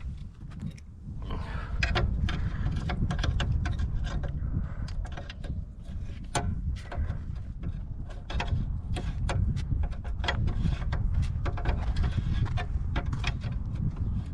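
Plastic parts of a Nelson horse waterer's float valve being handled and the plastic nut threaded back on by hand: irregular clicks and scrapes of plastic on plastic, over a steady low rumble.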